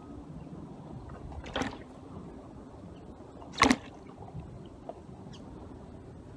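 Cast net being handled while prawns are sorted from its mesh, with two short sharp snaps about two seconds apart, the second the louder, over steady low background noise.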